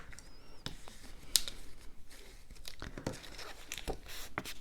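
Cardstock pieces being handled and folded by hand: scattered paper rustles, crinkles and light taps on the table.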